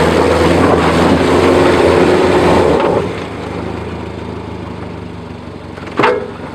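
1998 Subaru Forester's 2.5-litre flat-four engine revved and held under throttle for about three seconds, then dropping back to a lower steady run. The car stays put because the right inner CV joint has snapped. A sharp knock comes about six seconds in.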